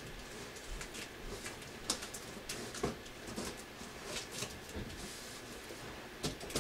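Large cardboard box of a computer case being cut open and handled: faint rustling and scraping with scattered clicks, a few of them sharper.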